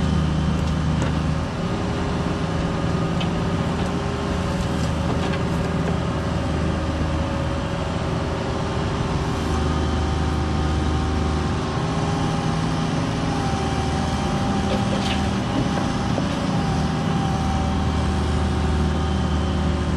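Cat 304 mini excavator's diesel engine running steadily under work, its low note swelling and easing as the arm digs and swings. A thin steady whine comes in about halfway through.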